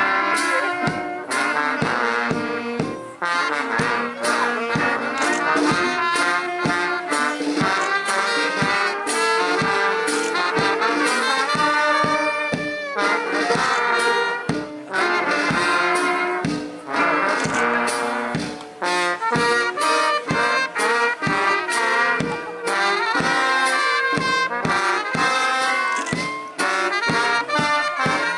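Brass band music, trombones and trumpets playing a tune over a steady beat.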